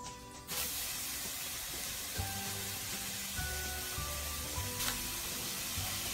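Broccoli sizzling in a hot stainless steel frying pan: a steady hiss that starts suddenly about half a second in, over background music. A single sharp click near the end of the sizzle.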